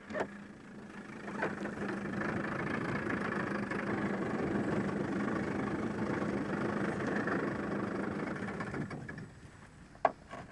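Small outboard motor running steadily, growing louder about a second in and dying away about nine seconds in. A short click sounds near the end.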